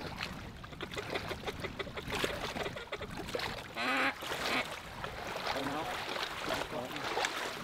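Raspy, rolling duck calls in a few short bouts, the longest about four seconds in, as a flock of diving ducks comes in to the decoys. Steady wind noise runs underneath.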